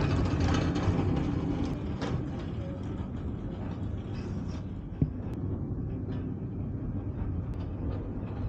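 Steady low rumble of a cargo ship's engines and machinery, with a few faint clicks and one sharp knock about five seconds in.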